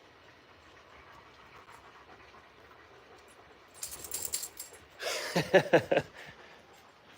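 Alaskan malamute vocalizing in play: a quick run of several short grumbling calls, each falling in pitch, about five seconds in. They come just after a brief burst of rustling.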